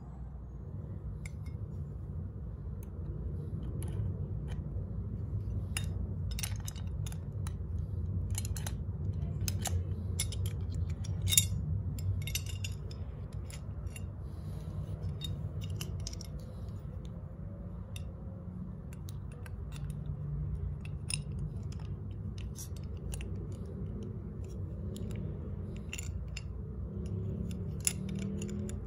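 Metal parts of a vintage Century electric fan motor being handled: scattered light clicks and taps as the motor body and its gear cover are turned and fitted, with one sharper click about eleven seconds in, over a steady low rumble.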